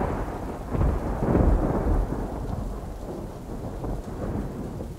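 Thunder rumbling over rain, swelling about a second in and then slowly fading away.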